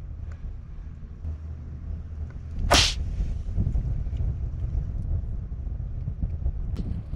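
A cat's single short, sharp hiss about three seconds in, during a squabble over food, over a steady low rumble of wind on the microphone.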